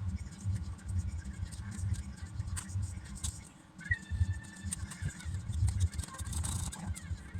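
Irregular scratching and light clicks of hands working plastic keycaps on a mechanical keyboard, over soft uneven low thuds, with a brief thin whistle-like tone about four seconds in.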